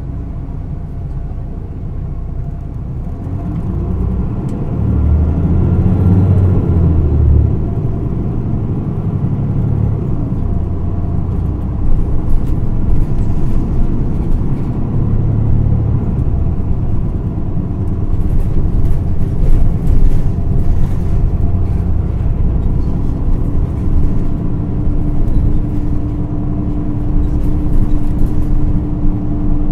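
Running sound of a 2010 Isuzu Erga PDG-LV234L2 city bus, heard from inside the cabin with the air conditioning running: the diesel engine pulls harder and rises in pitch about four seconds in, then the bus cruises with steady engine and road noise. A steady hum comes in near the end.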